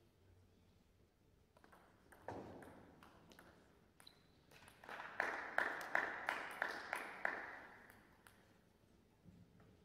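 Table tennis ball clicking off the rackets and the table in a rally: a few scattered hits at first, then a quick run of about three hits a second, each with a short echo of the hall.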